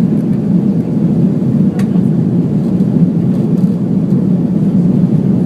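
Steady low rumble of jet engines and airflow heard inside the passenger cabin of an Airbus A330-300 in flight.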